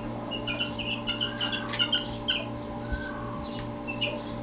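Young gamefowl chicks peeping: short high chirps scattered all through, over a steady low hum.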